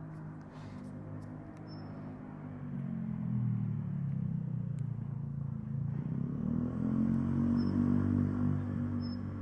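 A motor vehicle's engine runs off-camera as a low hum, growing louder about three seconds in and again near the end. A few short, high bird chirps sound over it, three times.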